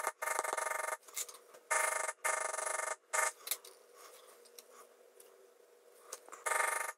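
A leather matting tool worked quickly over the background of tooling leather, heard as bursts of fast, buzzing taps separated by short pauses, quieter for a couple of seconds in the middle and strong again near the end.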